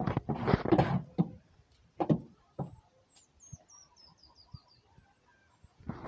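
Scuffling and knocks in a goat pen for about the first second, with two more knocks about two seconds in. Then a small bird's high twitter stepping down in pitch, with faint chicken clucking.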